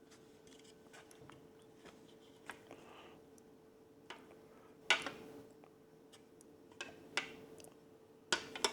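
Hard clear plastic parts of a window bird feeder being handled and set into place: scattered light clicks and taps, with a sharper clack about five seconds in and a couple more near the end, over a faint steady hum.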